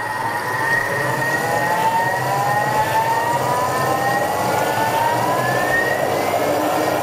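Thermomix motor and blade slowly ramping up to speed 10, a whine that climbs steadily in pitch over the churning of hot soup and cream being frothed in the mixing bowl.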